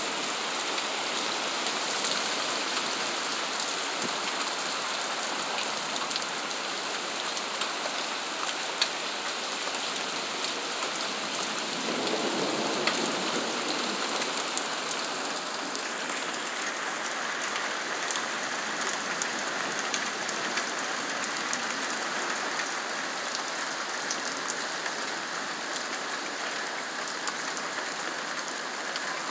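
Steady rain falling during a thunderstorm, with scattered sharp drip ticks and a brief deeper swell about twelve seconds in.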